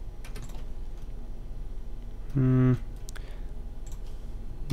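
Light computer keyboard and mouse clicks as values are typed in, a few near the start and a few after the middle. A short voiced 'um' comes a little before the middle, over a steady low electrical hum.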